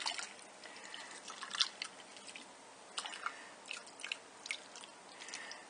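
Faint fizzing of beer foam on salted water, with scattered small crackles and pops as the bubbles burst.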